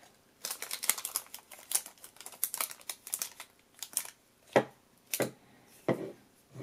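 Hard plastic toy goggles being handled. Their crinkly plastic film and frame rustle and click in a quick patter, then three separate sharp clicks follow near the end.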